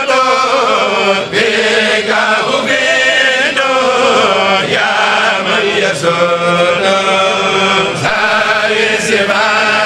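A kourel, a group of Mouride singers, chanting a religious poem (khassida) together, holding long notes and sliding between them without a break.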